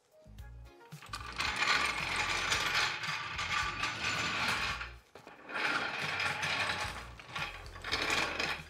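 Aluminum floor jack being rolled across a hard floor, its wheels and handle rattling and clattering in two long stretches with a short lull about five seconds in.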